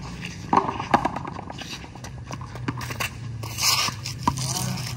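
Frontón handball rally: several sharp smacks as the hard rubber ball is hit with bare hands and strikes the concrete wall, the loudest about a second in. A sneaker scuffs on the concrete court a little after three and a half seconds.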